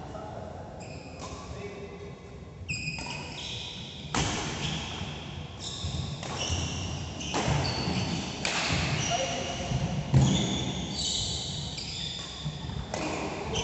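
Badminton doubles rally: shoes squeak on the synthetic court mat in many short, high squeals, mixed with footfalls and sharp racket hits on the shuttlecock. A sharp thump about ten seconds in is the loudest sound.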